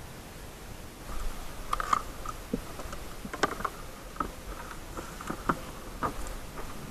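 Scattered clicks, knocks and rustling as hunting gear is handled in the back of a car, several sharp knocks a second between about two and six seconds in.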